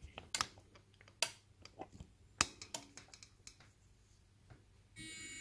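Scattered sharp clicks and taps for the first few seconds. About five seconds in, a steady whine with several fixed high tones starts: a bench dummy load of DC motors and a relay circuit, standing in for the compressor, being driven by the inverter board.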